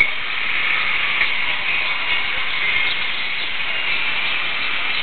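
Steady high hiss of outdoor background noise, with a few faint short chirps over it.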